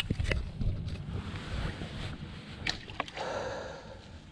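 Water sloshing and lapping at the shore, with a few sharp clicks and knocks: two near the start and two close together near three seconds in.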